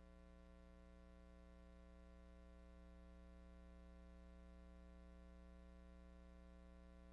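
Near silence with a faint, steady electrical hum and its overtones.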